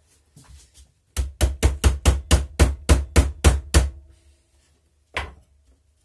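A hammer rapping the welded plastic case of a wall-wart power adapter to break the seam open: a fast run of about a dozen sharp blows, around five a second, then a single blow about a second later.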